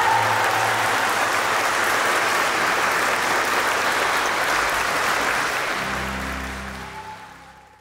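A church congregation applauding, a dense clapping with music underneath. The applause fades out over the last couple of seconds.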